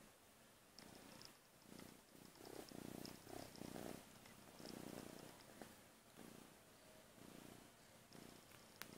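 Young ginger kitten purring softly, the purr swelling and fading about once a second with its breathing and loudest through the middle. A single sharp click sounds just before the end.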